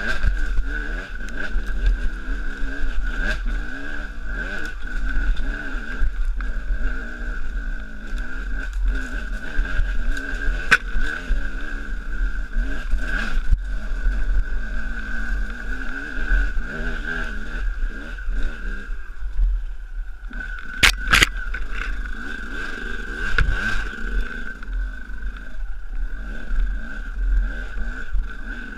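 Enduro dirt bike engine running under load on a rocky trail, revving up and down as the rider works the throttle, with knocks from the rough ground. Two sharp clicks come about two-thirds of the way through.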